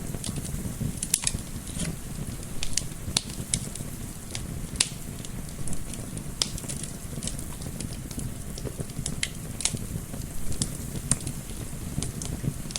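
Wood fire crackling, with irregular sharp pops a few times a second over a soft, steady low rumble of gentle wind.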